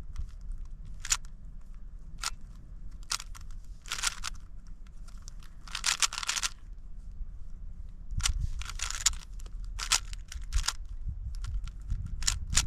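Plastic speedcube being turned quickly, its layers clicking and rasping in irregular short bursts, a few stretched into longer scrapes. A low rumble runs underneath.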